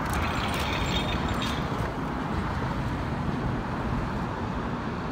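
Steady outdoor road-traffic noise, with no clear single event.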